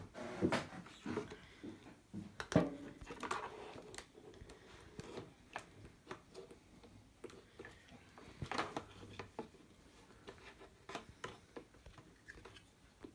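Irregular light clicks, taps and rustling of small parts and tools being handled, with sharper knocks about half a second in, between two and three seconds in, and between eight and nine seconds in.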